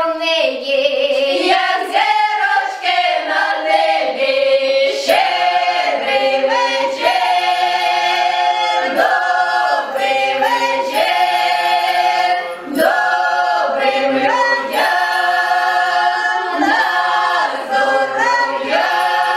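Ukrainian folk ensemble of women's and men's voices singing a Christmas carol together in the open-throated village style. The carol goes in held phrases of a few seconds, with short breaks for breath between them.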